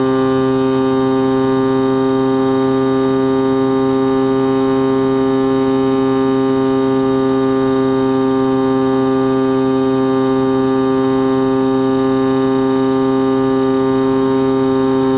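Skywalker X-8 flying wing's electric motor and propeller running at a steady throttle, heard from the onboard camera: a loud, unchanging buzzing drone.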